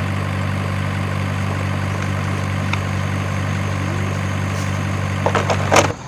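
A heavy truck's engine idling: a steady, unchanging low hum that cuts off abruptly just before the end. A few light knocks come just before it stops.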